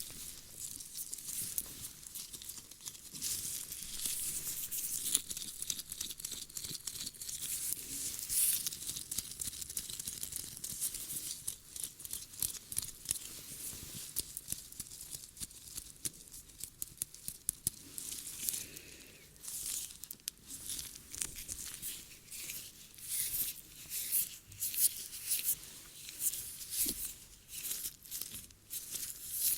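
Close-miked ASMR ear-cleaning sounds: an object scratching and rubbing right on the microphone, a dense crackle of small scrapes and clicks that grows choppier in the second half.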